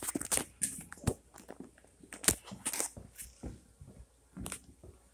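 Handling noise from a phone being carried with its lens covered: irregular rustles and knocks of cloth rubbing on the microphone.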